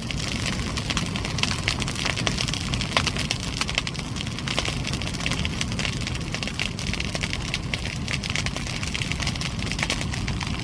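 Large wood fire burning hard: a steady low roar of flames with dense, irregular crackling and snapping of burning wood.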